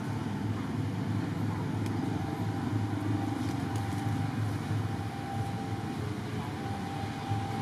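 Steady low background rumble with no distinct events, and a faint thin steady tone coming in near the end.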